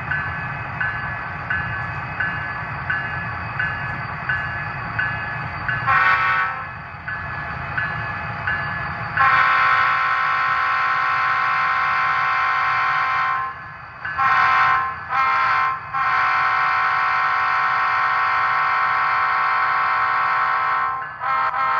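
Horn of a sound-equipped model Norfolk Southern diesel locomotive, blown over a low rumble. There is a short blast about six seconds in, then a long blast, two short ones, another long blast, and short toots near the end. Before the horn, the rumble carries a regular beat about every 0.7 s.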